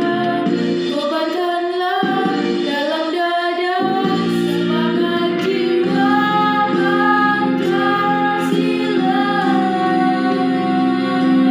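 A female voice singing a melody over a backing accompaniment, the accompaniment's low notes dropping out briefly about two seconds in and returning about four seconds in.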